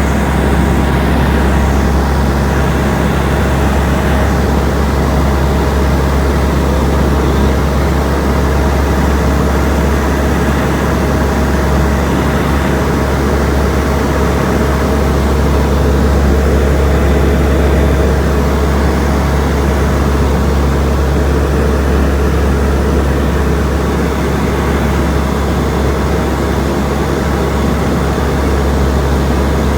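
Steady, loud low rumble with a noisy hiss above it, unbroken throughout.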